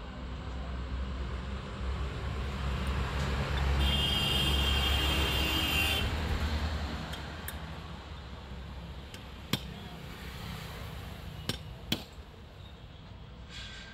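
A passing road vehicle swells and fades over a few seconds. Then come three sharp metal knocks, the last two close together: a hammer tapping on the car starter motor's parts.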